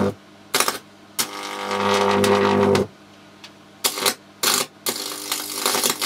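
High-voltage arc from two microwave oven transformers wired in parallel, buzzing and crackling as it burns across a circuit board. It comes in several bursts that cut out and strike again. The longest, about a second and a half, starts about a second in, and another strikes about five seconds in and carries on.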